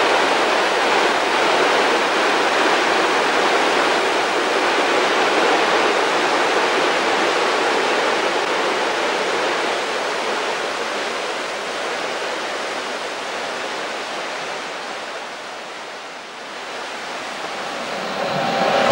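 A long freight train rolling along, heard from a distance as a steady rushing noise with no distinct wheel beats. It fades as the train moves away, then swells again near the end.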